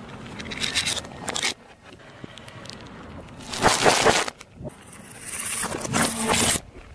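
A car tyre crushing objects on asphalt: crackling and crunching in three bursts, about a second in, around four seconds and again from about five seconds, as plastic sunglasses and then wrapped snack cakes give way under the wheel.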